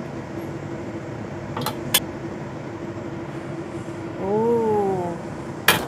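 A metal spatula scraping and clinking against a ceramic bowl as cooked noodles are served, with a couple of sharp clinks about two seconds in and another near the end. Under it runs a steady motor hum. A short tone rises and falls about four seconds in.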